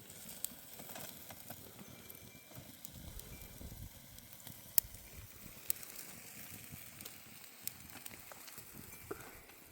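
Wood fire crackling: scattered sharp pops over a steady faint hiss, the loudest pop about five seconds in.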